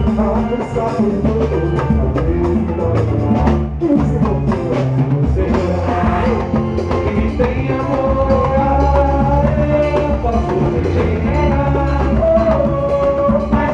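Live band playing Latin-style music: drums and percussion over a steady bass line, with long held melody notes coming in about halfway through.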